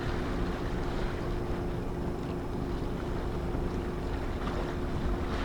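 Steady hum of a boat's motor running, with wind buffeting the microphone.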